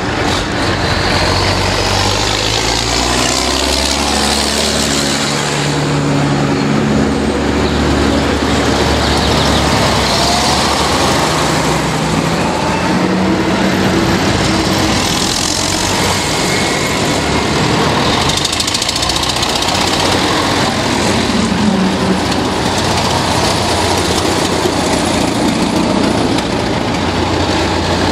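Tractors in a slow procession, vintage and modern, driving past one after another, their engines running steadily with the pitch and loudness shifting as each one passes.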